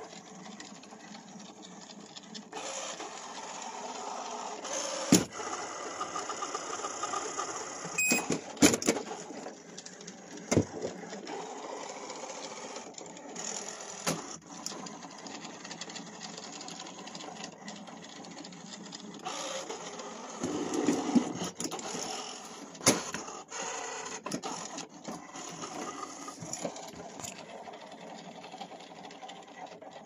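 SUPRA VCS-4093 robot vacuum cleaner running, its motor humming steadily, with several sharp knocks spread through the run.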